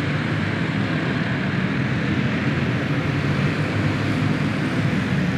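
Several dirt karts with clone engines, small single-cylinder four-strokes, racing together in a steady, unbroken drone.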